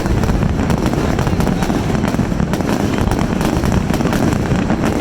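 Fireworks finale barrage: aerial shells bursting in rapid, overlapping succession, a continuous run of booms and crackles with no pause.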